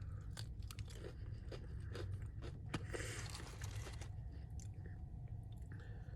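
Close-up biting and chewing of crispy Popeyes fried chicken: a run of sharp crackling crunches, the loudest about three seconds in, then softer chewing, over a steady low hum.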